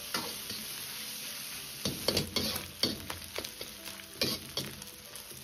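Minced pork sizzling in hot oil in an iron wok while a metal ladle scrapes and turns it in irregular strokes, the meat being stir-fried over medium heat to render out its fat and water.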